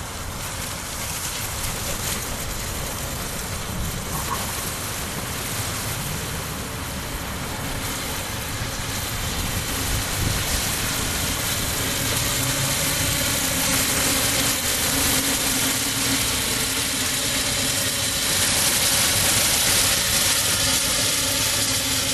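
15-inch gauge miniature railway train running: a steady rumble and hiss that gets gradually louder.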